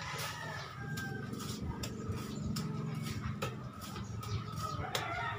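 Birds chirping over a low steady hum, with scattered sharp clicks and scrapes from a steel trowel working mortar on a hawk board.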